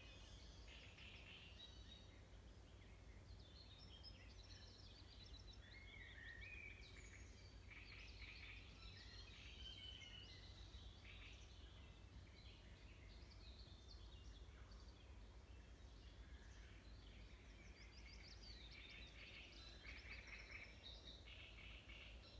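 Faint songbird chorus: several birds chirping and trilling, with calls overlapping all the way through, over a low steady rumble.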